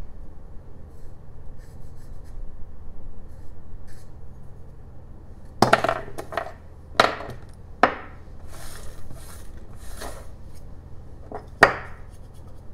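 Faint scratching of a pencil marking lines on a wooden block, then a few sharp knocks and clatters with soft rustling as loose wood carving chips are swept across a wooden workbench by hand.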